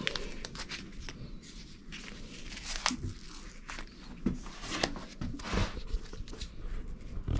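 Scattered light knocks, clicks and rustles of hands working on a bicycle's handlebars and parts in a small room, coming irregularly.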